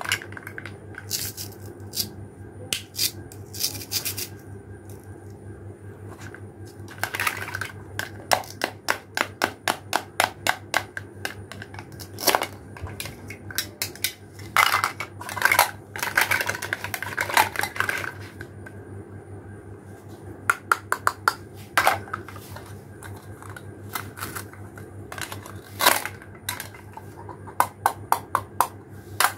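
Plastic toy fruits and vegetables clicking and clacking as they are picked up, knocked together and set down, and cut apart with a plastic toy knife, in irregular runs of sharp taps over a faint steady hum.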